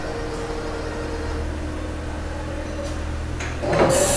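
Mori Seiki SV-500/40 CNC vertical machining center running with a steady hum as its axes traverse. A steady tone in the hum stops about a third of the way in. Near the end a much louder hissing rush with rattling starts.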